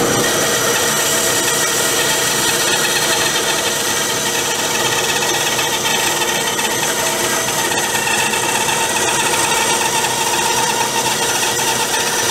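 Ryobi 9-inch band saw running with its stock blade cutting steadily through a 4x4 post.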